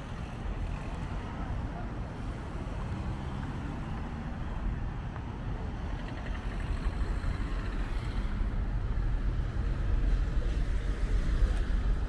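Low, steady rumble of motor traffic on a seaside road, with wind buffeting the microphone; it grows louder in the second half.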